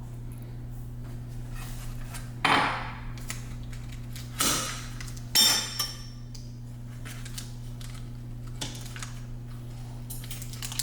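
Kitchen dishes and utensils clattering and clinking as food is prepared, with three louder clatters around the middle and lighter clicks between.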